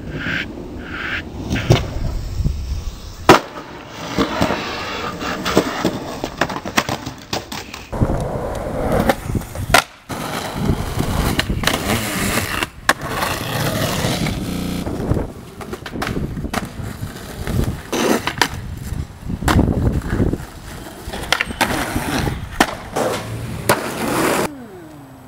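Skateboards rolling on concrete and asphalt, broken by sharp pops and landings of the board and by trucks grinding along a metal bench. The clips cut abruptly from one to the next.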